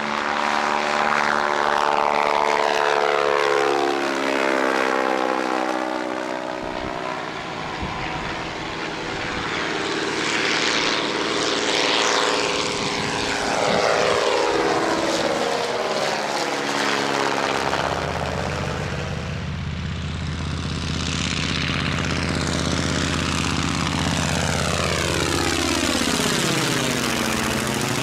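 Propeller engines of vintage aircraft making several low passes, one after another; each engine note drops in pitch as the aircraft goes by. About two-thirds of the way through, a deeper, steadier engine note takes over.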